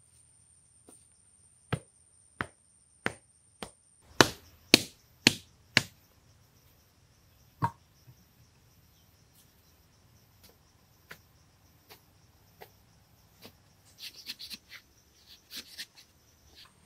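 A hand tool chopping into hard-packed earth: a run of sharp knocks about two a second, the loudest group a few seconds in, then scattered lighter strikes and a quick cluster near the end. A steady high insect buzz runs behind.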